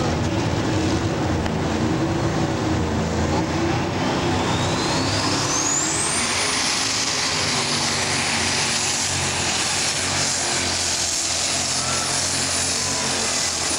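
Unlimited super stock pulling tractor's multi-turbocharged diesel engine running at full power under load as it drags the weight-transfer sled. Over the dense engine roar, a high turbocharger whine climbs steeply about four seconds in and then holds at a steady scream.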